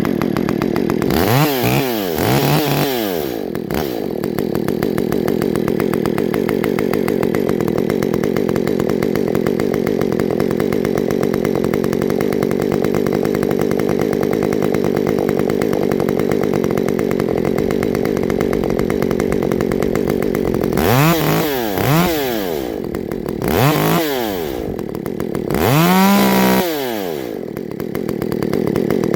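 Ported Stihl MS194T two-stroke top-handle chainsaw running. It is revved twice, idles steadily, then is revved three times near the end, each rev a quick rise and fall in pitch, while its carburettor is tuned after running rich.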